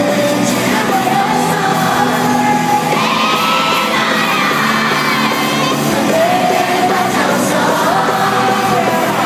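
Live pop-rock band playing through a concert PA, with electric guitars and drums under a male lead singer who holds long sung notes. The audience yells and whoops over the music.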